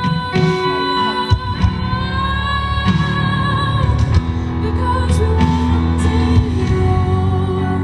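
Live band playing during a sound check: a sung melody with long held notes over guitar and bass, played loud through the PA.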